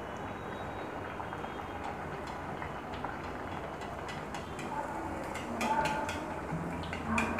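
Fuchka dough discs deep-frying in hot oil in an iron karahi: a steady sizzle and bubble of the oil, with light clicks and taps from a slotted metal spoon pressing the puris in the second half.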